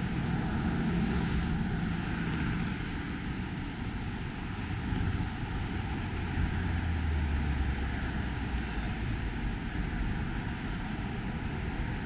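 A low engine drone over steady outdoor noise, dropping lower in pitch about four seconds in and fading after about nine seconds.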